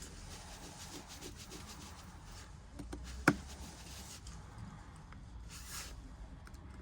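Faint rubbing and light scraping of small tools and parts being handled during phone reassembly, with one sharp click about three seconds in.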